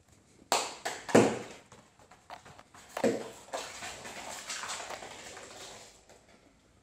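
A crumpled aluminium foil ball tapping on a laminate floor: a few sharp knocks in the first three seconds, then a light scratchy rattle as it skitters and rolls across the floor, fading out near the end.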